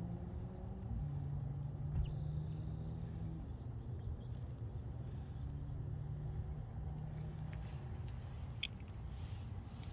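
Low steady hum of a distant engine, stepping in pitch about a second in and again a couple of seconds later, with a faint short high chirp near the end.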